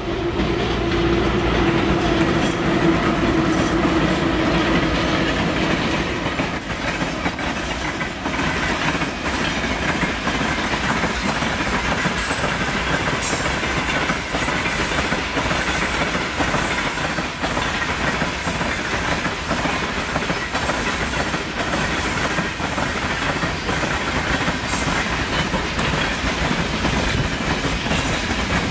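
Freight train hauled by a two-section VL10U electric locomotive rolling past, its wagon wheels clattering over the rail joints. A steady hum fades out over the first few seconds as the locomotive moves away, and the wagons' rumble and clicking carry on.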